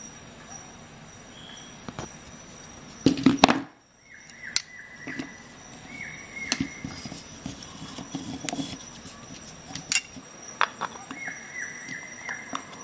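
Clattering knocks of metal tools being handled, about three seconds in. Then come two runs of short, high squeaks as a screw is twisted in a wooden board by pliers gripping its head, with small clicks in between.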